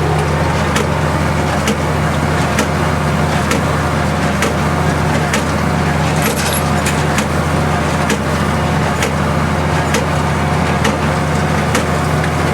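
Tractor engine running steadily at about 1800 rpm, driving a Hesston 4550 small square baler that is baling hay, with a sharp knock repeating about once a second from the baler's working stroke.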